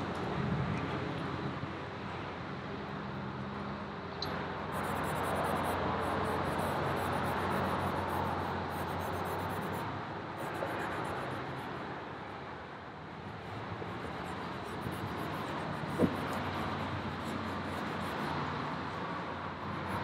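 Road traffic passing: a steady rushing of cars that swells and fades over several seconds, with one sharp click about sixteen seconds in.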